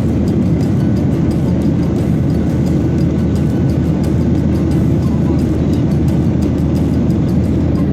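Steady low rumble of a moving vehicle, even in level throughout.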